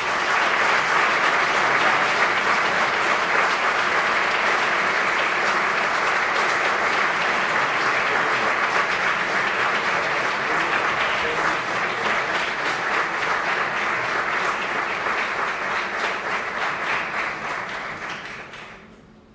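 Audience applauding, a dense even clapping that fades away near the end.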